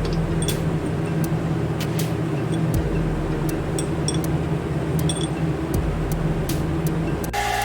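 A power tool running steadily, with a low hum and scattered sharp ticks, working the corners off a small metal block.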